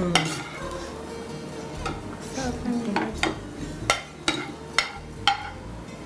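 Metal spatula scraping and knocking against a frying pan as freshly fried jeera chicken is stirred and scraped out of the pan, with a light sizzle. From about three seconds in come sharp clangs, roughly two a second.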